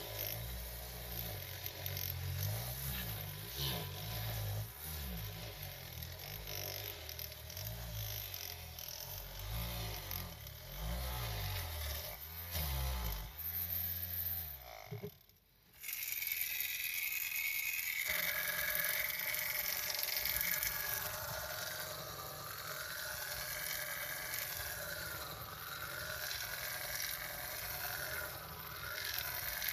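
A tiny motorised rotary scrub brush whirring and scraping through foam on a miniature rug, its low motor hum wavering as it is pushed about. After a brief gap about halfway, a miniature counter-rotating-brush (CRB) carpet machine runs and scrubs through the wet foam with a hissier, rattling sound.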